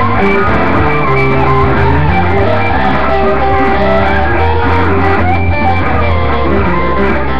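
Electric guitar played along with a blues-rock band recording: a steady bass line under changing guitar notes, loud and without a break.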